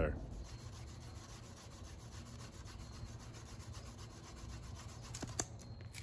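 Bamboo fire saw: the sharp edge of a split-bamboo top board rubbed back and forth across a bamboo bottom board, a quiet, even scraping. Two short clicks sound near the end.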